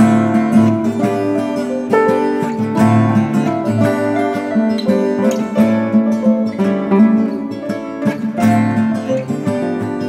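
Instrumental background music with an acoustic guitar playing a steady run of plucked notes.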